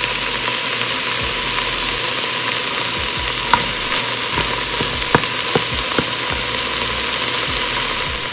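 Crumbled sausage and red onion sizzling in a hot pot, stirred with a spatula that scrapes and knocks against the pot a few times near the middle.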